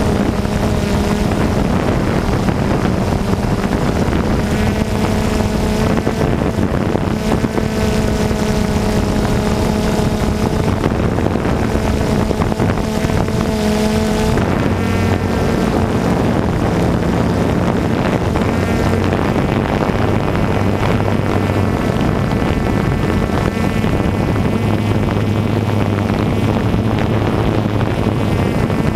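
DJI Phantom 2 quadcopter's electric motors and propellers humming steadily, heard from the camera mounted on the drone, with wind buffeting the microphone. The pitch of the motors shifts about halfway through.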